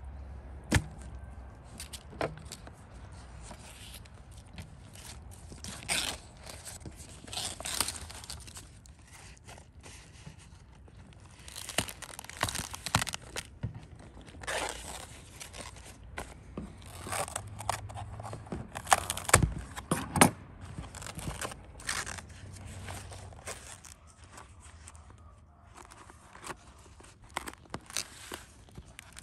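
Fresh banana leaves rustling and crinkling as they are folded by hand into a wrapped parcel, in irregular swishes with a few sharp taps; the busiest handling comes in the middle and about two-thirds of the way in.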